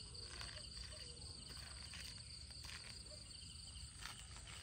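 Faint, steady high-pitched chirring of night insects, with a few soft knocks.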